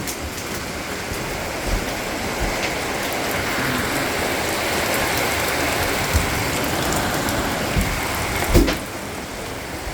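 Steady rain falling, swelling a little through the middle, with a few dull knocks, the loudest near the end.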